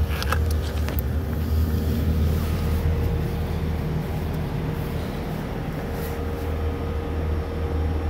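Sprsun CGK060V2LS air-to-water heat pump outdoor unit running, a steady low hum with a faint constant whine over it. A few short clicks sound in the first second.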